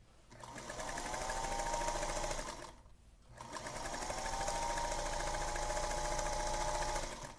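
Sewing machine stitching in two runs with a short stop about two and a half seconds in. Each run starts with the motor whine rising as it speeds up, then holds steady.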